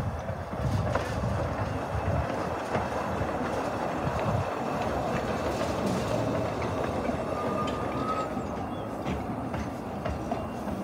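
Narrow-gauge steam train passing close by: carriages rumbling over the track, with wheels clicking over the rail joints and a brief faint squeal about three-quarters of the way through.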